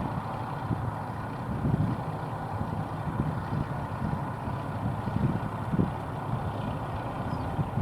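Large harvest machinery running steadily with engine hum, and irregular low gusts of wind buffeting the microphone.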